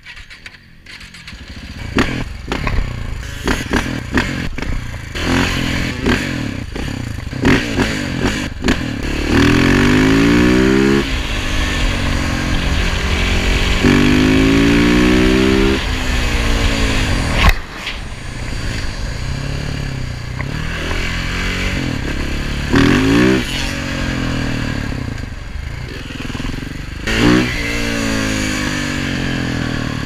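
KTM 690 SMC R supermoto's single-cylinder engine pulling away and accelerating hard, its revs rising in several runs that break off at gear changes. It is quiet for the first couple of seconds, then loud.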